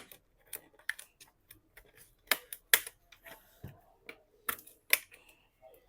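Plastic laptop screen bezel being pried up with a flat tool: a string of irregular sharp plastic clicks and snaps.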